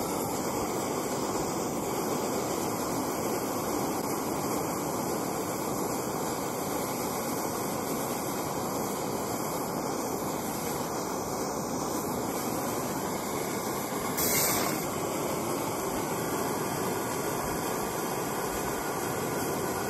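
Canister-top backpacking gas stove burning steadily, heating a pot of water to the boil, with a brief sharper hiss about fourteen seconds in.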